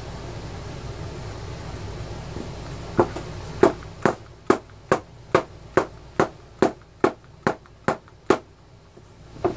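A dozen or so sharp taps at an even pace of about two a second, starting about three seconds in: the Quantum Battery 1+ pack being tapped to settle the replacement cell further down into its plastic case. A steady low hiss fades as the tapping begins.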